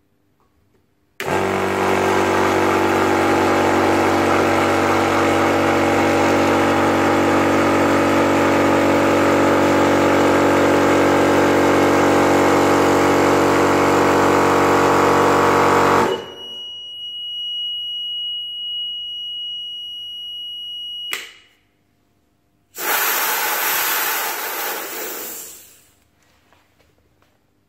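A 300-bar (4500 psi) mini PCP air compressor running loud and steady for about fifteen seconds, then shutting off suddenly as its auto-stop cuts in at the set pressure. Its alarm then sounds a steady high beep for about five seconds until it is switched off, followed a second later by a hiss of air lasting about three seconds.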